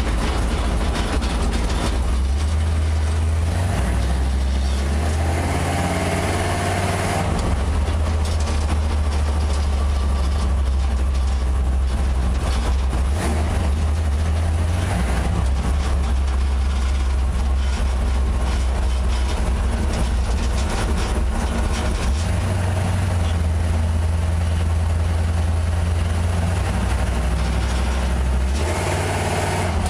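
First-generation Chevy 350 small-block V8 with Vortec heads running as the car drives, heard from inside the cabin: a deep, steady drone, with the engine revving up briefly about five seconds in.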